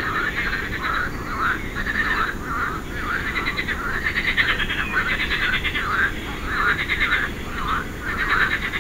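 A chorus of frogs calling: rapid pulsed croaks from several animals overlapping, repeating about twice a second.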